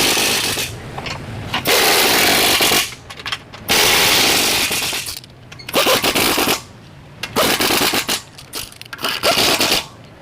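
Impact wrench hammering in repeated bursts of about a second each, with short pauses between, running bolts on a lower control arm.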